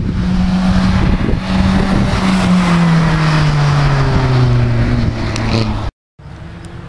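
Historic rally car passing at speed: its engine note holds steady, then drops in pitch as it goes by and pulls away. The sound cuts off suddenly near the end.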